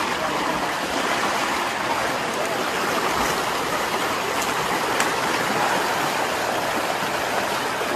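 Steady rush of a flowing river, an even wash of water noise that holds at the same level throughout.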